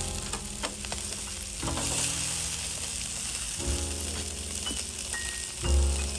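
Lamb chops sizzling on a wire grill over hot charcoal: a steady hiss scattered with small crackles. Background music plays over it, its bass notes returning about every two seconds and loudest near the end.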